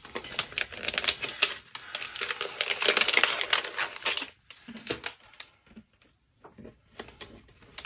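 Clear plastic packaging crinkling and crackling as die-cut paper pieces are handled in and out of it, busiest in the first four seconds, then a few scattered crackles and taps.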